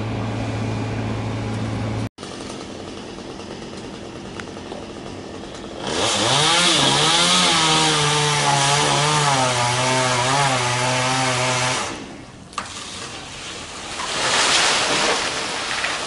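A gas chainsaw revs up about six seconds in and runs at high speed for about six seconds, its pitch dipping a little as it bites into a palm's crown, then stops abruptly. Earlier, a steady low engine hum cuts off suddenly about two seconds in, and a short rush of noise follows the saw near the end.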